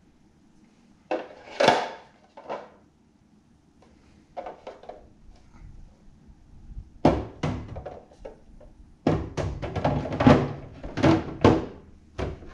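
Hard plastic parts of a Picobrew Z step filter knocking and clicking as the hop containers are handled and set into the clear plastic tray. The thunks are scattered at first and come thickest in the last few seconds.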